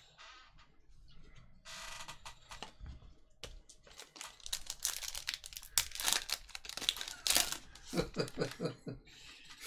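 Foil trading-card pack wrapper being torn open by hand, crinkling and crackling as it is ripped apart and the cards pulled out.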